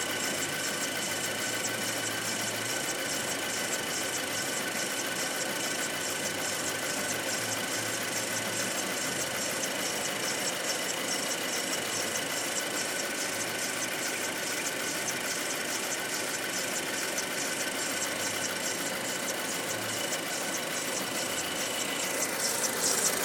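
Audi 2.0 TFSI turbocharged four-cylinder engine idling, with a rapid, even clacking and a steady high-pitched whine running alongside it; the owner finds the noise next to the clacking strange and does not know its cause. It grows louder near the end.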